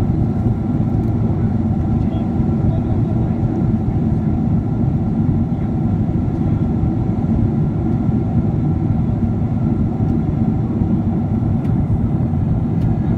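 Steady low rumble of a jet airliner's cabin in flight: engine and airflow noise heard from a window seat, unchanging throughout, with a faint steady hum.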